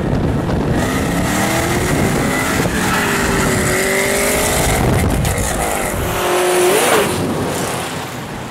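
Performance car engine accelerating hard, its pitch climbing in several runs and loudest about seven seconds in before easing off.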